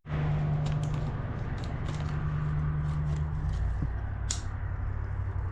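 Light clicks and crackles of hands working copper wire and a hand-crank wire stripper, with one sharp click about four seconds in, over a steady low hum that drops lower partway through.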